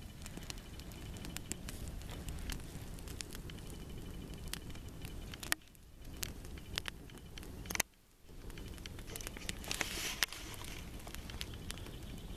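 Wood campfire crackling, with scattered sharp pops over a steady low rumble. The sound drops out briefly twice, about halfway through.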